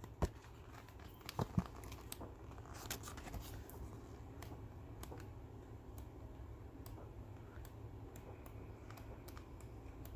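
Patterned scrapbook paper pad being handled and its pages flipped: light paper rustles and scattered soft ticks, with a few sharper clicks in the first two seconds.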